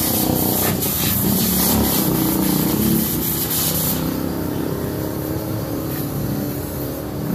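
Used engine oil draining in a thin stream from a scooter's engine into a steel basin, under a loud hissing spray that cuts off suddenly about four seconds in, with a vehicle running in the background.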